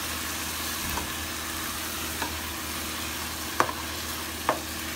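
Chicken pieces, tomatoes and bell peppers sizzling as they are sautéed in a nonstick pot and stirred with a plastic spatula. The spatula knocks against the pot a few times, with the two sharpest knocks near the end.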